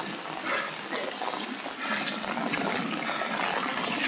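Muddy flash-flood runoff rushing steadily across a washed-out gravel road after a sudden heavy downpour.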